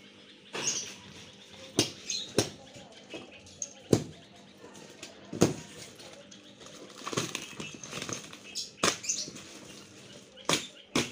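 Plastic fish bags and a cardboard carton being handled: irregular sharp knocks and clicks, about a dozen spread unevenly, over light rustling.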